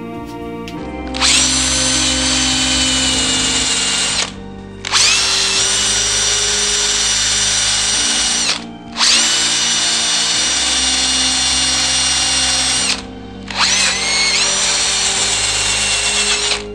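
Corded electric drill spinning a domed sanding pad against a wooden workpiece, in four runs of about three to four seconds. Each run begins with a quick rise in pitch to a steady high whine, with short pauses between them.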